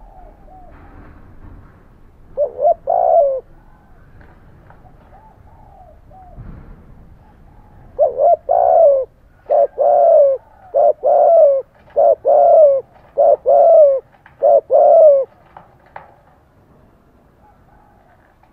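Spotted dove cooing in its rapid 'thúc gù' style. A short three-note coo comes first, then after a pause six quick two-part coos, each a short note followed by a longer falling one, over about seven seconds. Fainter coos sound in between.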